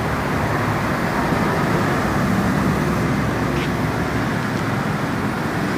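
Steady motor-vehicle noise: a low engine hum under traffic noise.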